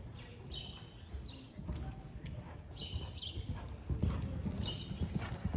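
Horse cantering on sand footing: muffled hoofbeats that grow louder about four seconds in as it comes closer.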